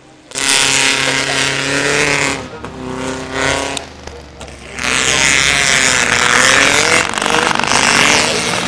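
Vintage racing car engines passing at speed on a wet circuit, loud, with the pitch rising and falling. The engine noise dips around four seconds in and swells again from about five seconds in.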